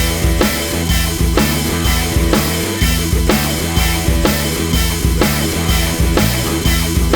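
Rock music with drums, guitar and a steady beat.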